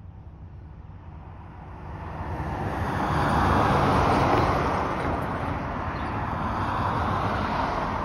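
A car passing on the road, its tyre and engine noise swelling to a peak about four seconds in and fading, with a second, quieter vehicle going by near the end.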